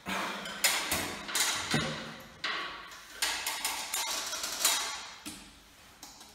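Irregular hard plastic clicks and knocks, about a dozen, from a First Alert smoke alarm being handled while its battery is fitted. The sounds taper off near the end.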